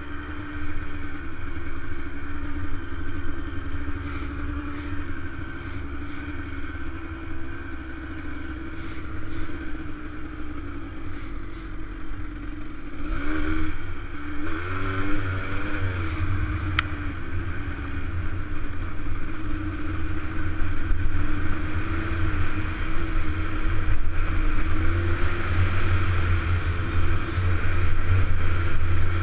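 Dirt bike engine running at a steady road speed, heard from the rider's helmet with a heavy low rumble. About 13 to 15 seconds in, its pitch dips and climbs back up.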